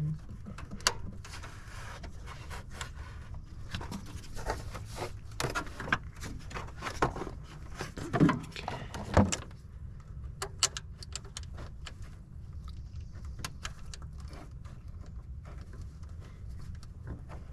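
Scattered metallic clicks, clinks and taps of a 1/4-inch ratchet and socket working a starter terminal nut, with a few louder knocks about a second in and around eight and nine seconds in, over a steady low hum.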